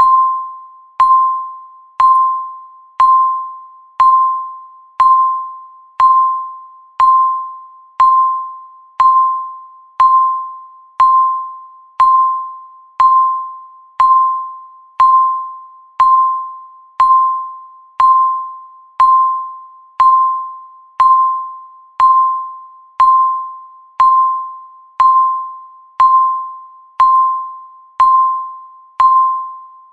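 Digital countdown timer beeping once every second, about thirty times. Each beep is a single clear tone that starts sharply and fades out before the next one.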